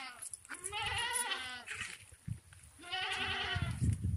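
Goats bleating while waiting to be milked: two long bleats with a wavering pitch, after the tail of another at the very start. A low rumble comes up near the end.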